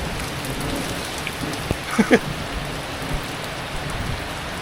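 Steady rain falling, not very heavy, picked up close on an action camera's microphone out in the downpour. A couple of brief sharp knocks sound about two seconds in.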